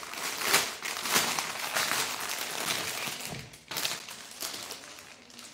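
Plastic garment wrapping crinkling and rustling as a folded cotton kurti is handled and laid out, in a string of irregular bursts that die down toward the end.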